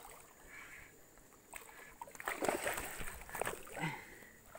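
A hooked hampala barb splashing and thrashing at the water surface while it is played on a fishing line, in irregular bursts about one and a half to four seconds in.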